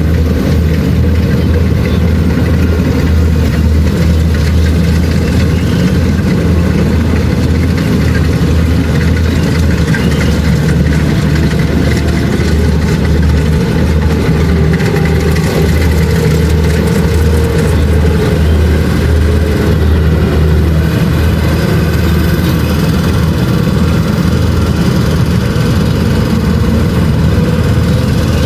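Kubota DC-70 Plus combine harvester running steadily, its engine humming without change.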